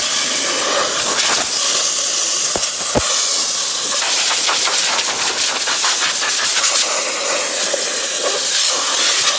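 Compressed air blowing in a loud, steady hiss to dry water off freshly washed aluminum intercooler pipes.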